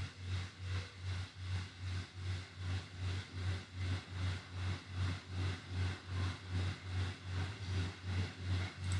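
Low machine hum that pulses evenly about three times a second.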